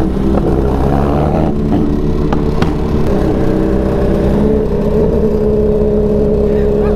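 Motorcycle engines running steadily at low cruising speed, with a second motorcycle riding alongside.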